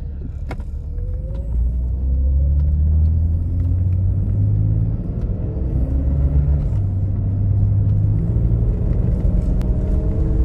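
BMW E32 750iL's 5.0-litre V12 engine accelerating under part throttle, heard from inside the cabin, its note climbing as the car picks up speed. The engine is pulling past the 2,000 rpm limit that limp mode had held it to.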